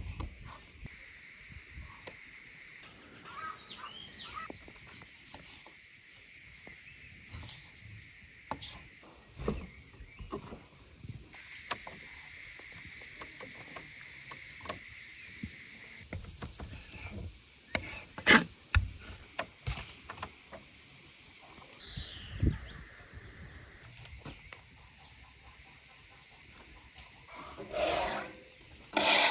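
Outdoor ambience: a steady high insect chirring that stops and starts again, under scattered light clicks and knocks. Two sharper knocks come past the middle, and a dog barks near the end.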